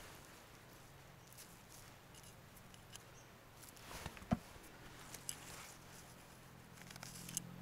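Faint rustling in dry pine needles with a few soft clicks and snaps, the loudest about four seconds in: hands and a knife working at the base of young slippery jack mushrooms to cut them.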